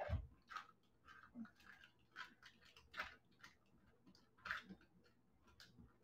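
Faint, short scraping strokes of cheddar cheese being grated, coming at an uneven pace of about one or two a second.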